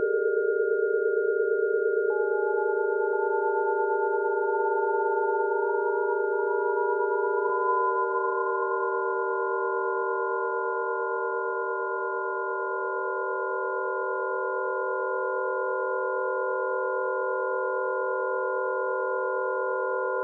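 Electronic drone of several held sine tones synthesized in Max MSP. About two seconds in, a higher tone enters and glides slowly upward for several seconds, then holds.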